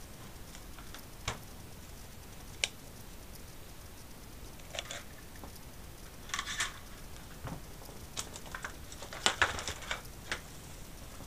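Handling noise: scattered clicks and taps of hard plastic and cables, with short bursts of crackling, the loudest a cluster of crackles about nine seconds in.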